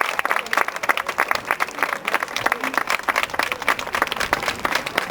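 Audience applauding, with many hands clapping steadily at once.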